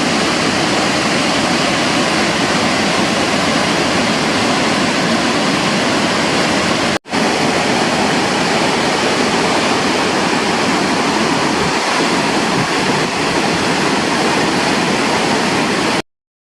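Waterfall: a loud, steady rush of falling water. It breaks off for a split second about seven seconds in and cuts off abruptly near the end.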